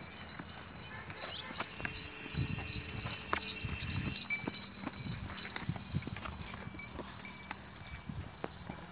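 Hoofbeats of a ridden Marwari horse on dry, grassy ground. They grow louder as it approaches and are loudest about two to five seconds in, as the horse passes close by.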